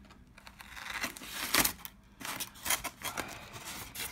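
Packing tape being peeled off a polystyrene packing lid and the lid pulled free, a run of irregular tearing and scraping noises starting about a second in, loudest near the middle.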